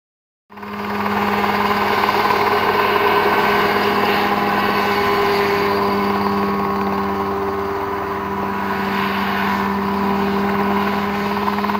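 Mosquito ultralight helicopter running, its engine and rotor giving a steady, even drone.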